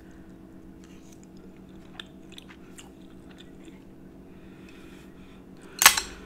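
Quiet closed-mouth chewing of tender stir-fried beef, with faint soft clicks of the mouth. Near the end comes a short, sharp clatter, the wooden chopsticks set down on the serving platter.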